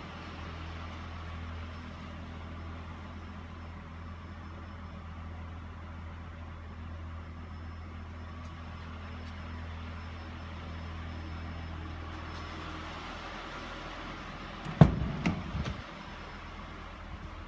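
Honda Pilot's 3.5-litre V6 idling, heard from inside the cabin as a steady low hum. About fifteen seconds in comes a loud thump, followed by a few smaller knocks over the next second.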